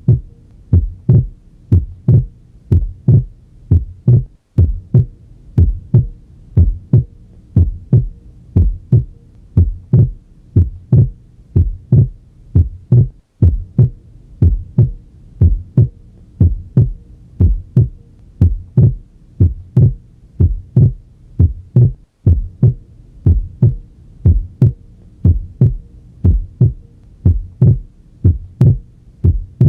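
Heart sounds heard through a stethoscope at the pulmonic area: a steady, regular rhythm of paired low thumps (S1 and S2). The second sound is a physiological split S2, which splits into aortic and pulmonary closures on inspiration and merges into a single sound on expiration.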